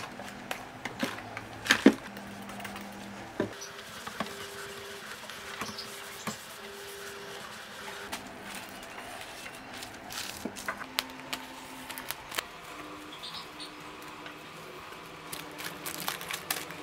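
Cardboard boxes and plastic-wrapped packets being handled and set down on a wooden desk and drawer: scattered light taps, knocks and rustles, a few louder knocks among them. Faint held notes that change pitch every second or so sit underneath.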